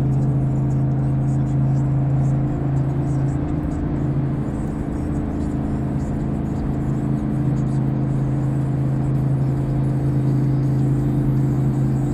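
Ram 1500 engine running at a steady speed through a Ramjet stainless cat-back exhaust with only a centre muffler and no rear muffler, giving a loud, even exhaust drone.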